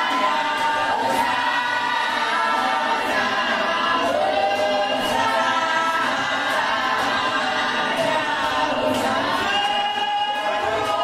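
Church congregation singing a hymn together unaccompanied: many voices in harmony, without a break.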